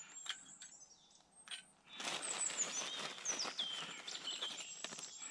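Lumps of charcoal clicking and knocking as they are stacked into a small metal Firebox stove, followed by a plastic bag of charcoal rustling. A songbird sings a short descending phrase about two to four seconds in.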